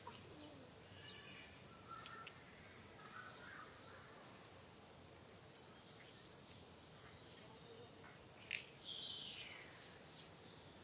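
Faint, steady, high-pitched cricket-like insect trill, with scattered short chirps. A louder cluster of brief falling squeaks comes about eight and a half seconds in.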